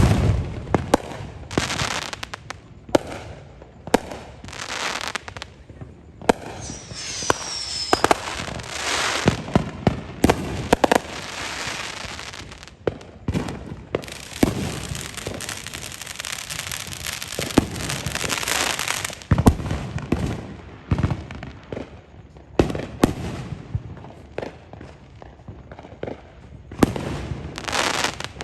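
Backyard consumer fireworks going off: repeated sharp bangs and pops mixed with long stretches of crackling hiss, and a brief falling whistle about seven seconds in.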